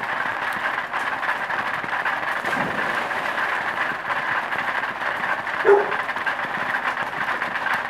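Steady rushing of water on the pool. About a third of the way in comes a low splash as a child goes into the pool, and near three-quarters through a short yelp.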